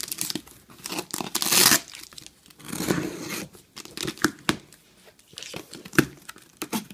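Packing tape on a cardboard box being cut with a knife and ripped off, with the cardboard rustling and crinkling. The longest, loudest rip comes about one and a half seconds in, and a few sharp clicks follow in the second half.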